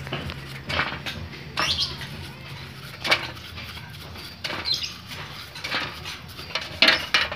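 A series of short, sharp clinks and clicks, about six spread irregularly, from small metal carburetor parts being handled during cleaning. A low steady hum fades out in the first few seconds.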